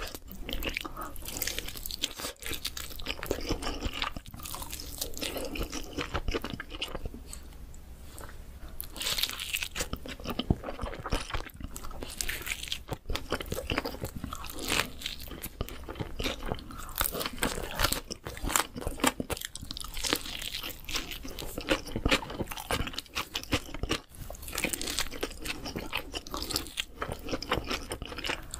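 Close-miked eating sounds: crunching bites and chewing of crisp-coated fried chicken, then of cheesy pizza crust, in a dense, irregular crackle.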